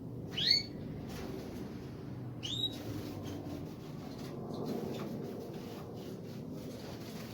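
A small aviary finch gives two short rising chirps about two seconds apart, over a steady low background rumble.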